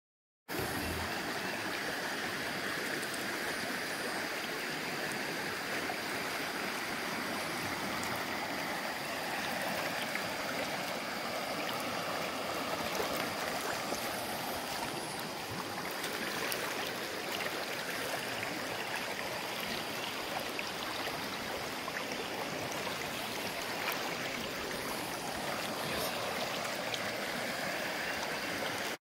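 Clear spring-fed river current flowing steadily over a shallow gravel riffle, a constant rush and gurgle of moving water.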